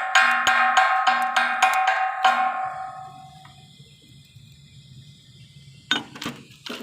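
Repeated sharp strikes, about three a second, each with a ringing tone at the same pitch; they stop a little over two seconds in and the ringing dies away. A few sharp clicks near the end.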